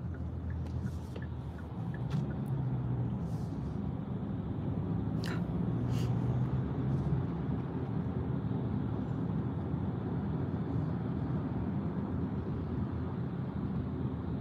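Steady low rumble of a moving car heard from inside the cabin, with a few faint clicks.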